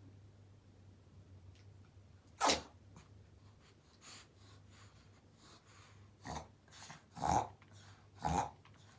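Pomeranian reverse sneezing: a loud, sharp noisy breath about two and a half seconds in, then a run of three such breaths about a second apart near the end.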